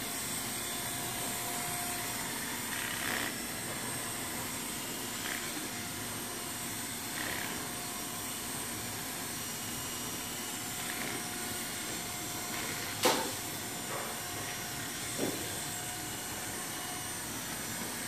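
Corded electric hair clippers running steadily, cutting hair over a comb. A couple of sharp clicks come in the second half.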